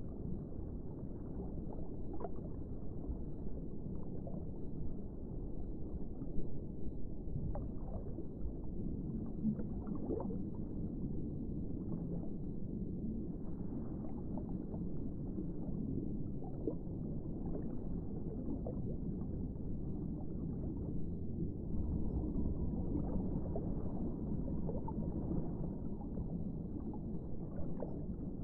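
Steady, low, dull water noise, like underwater or aquarium ambience, with a few faint clicks scattered through it.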